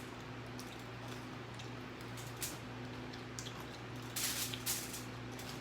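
Eating sounds: chewing and handling of food, with a few short crackles about two and a half seconds in and a louder cluster of them around four seconds in, over a steady low hum.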